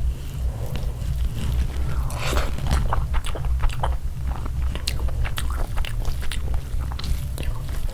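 A person eating close to the microphone: chewing with many sharp crunching bites of crisp food. A steady low hum runs underneath.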